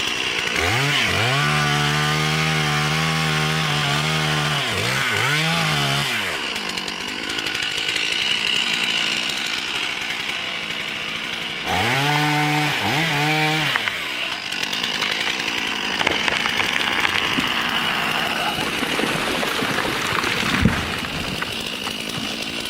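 Chainsaw engine being throttled up and down, its pitch rising and falling in arches twice, first about a second in for five seconds and again about twelve seconds in, with the saw running more steadily in between. A single sharp knock about twenty seconds in.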